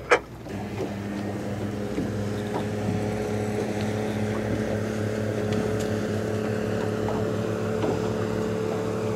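A motorboat engine running at a steady pitch, coming in about half a second in and holding steady throughout. A short sharp click comes right at the start.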